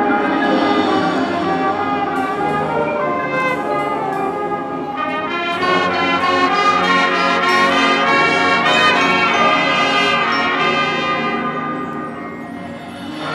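High school marching band playing its field show, the brass section carrying the music, with a quick run of notes in the middle before the sound eases off near the end.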